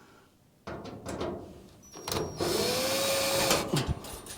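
Power drill running briefly for about a second with a steady whine, backing out a small sheet-metal screw from a furnace chimney pipe. Before it come a few knocks from handling the drill and the metal.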